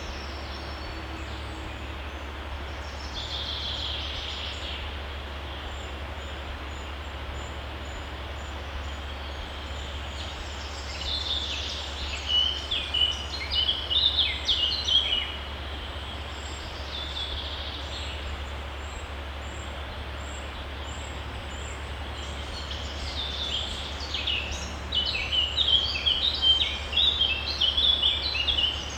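A songbird singing quick, chirpy phrases in three spells, about three seconds in, around the middle and near the end, over a steady rushing of a woodland stream.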